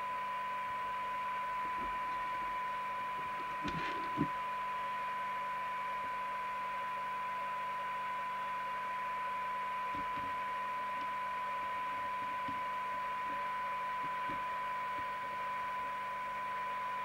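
Rotel RVC240 FM CB radio receiving a signal-generator test signal: a steady test tone with hiss behind it, the recovered audio as its receive coils are tuned. A small knock about four seconds in.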